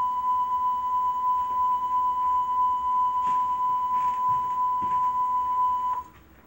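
A steady, high-pitched electronic tone on one unwavering pitch, played from a VHS tape through a CRT television's speaker during a blank white-screen stretch; it cuts off suddenly about six seconds in.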